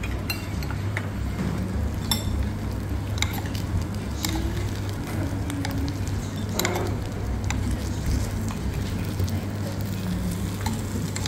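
Hakka yam abacus sizzling in a hot clay pot while a metal spoon stirs and scrapes it, with scattered clicks of the spoon against the pot. It is kept stirred so it won't stick to the hot pot.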